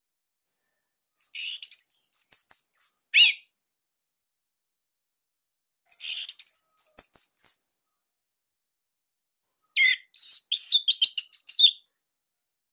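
Orange-headed thrush (anis merah) singing three quick phrases of high, rapid notes, a few seconds apart. The song is of a tight, loud type, of the kind kept-bird keepers play to coax other thrushes into singing.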